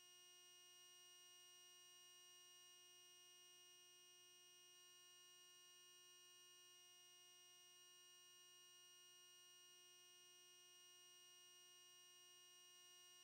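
Near silence: only a faint, steady electronic hum and whine made of several thin unchanging tones.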